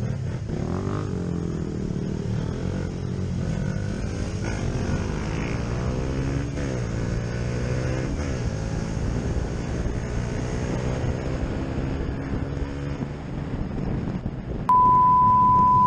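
KTM RC125's single-cylinder four-stroke engine revving up and dropping back again and again as the motorcycle accelerates and shifts gears. Near the end a loud steady beep starts and drowns it out.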